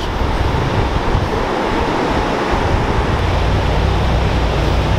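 Surf breaking on the beach, heard through wind buffeting the microphone: a steady rushing noise with a heavy, uneven low rumble.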